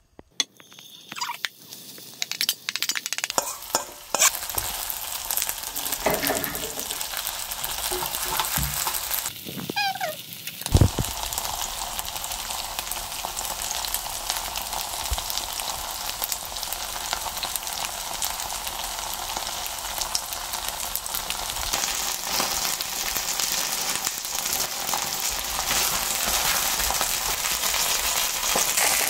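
Pancake batter frying in hot oil in a frying pan: a few scrapes and clicks as it is spooned in, then a steady sizzle that slowly grows louder. There is one sharp knock about eleven seconds in.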